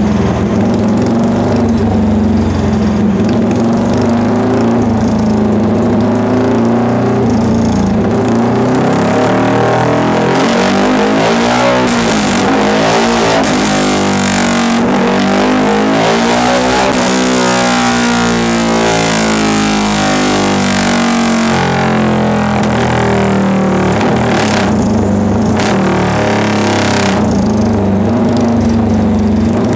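Yamaha Y15ZR's single-cylinder engine running loud through an open exhaust on a motorcycle dyno. It holds steady revs, rises and then falls in pitch through the middle as it is revved up and back down, then settles to steady revs again.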